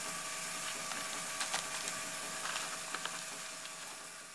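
Steady room hum and hiss with a few light clicks and taps from hands handling a thin glass tube on a table. The sound fades out near the end.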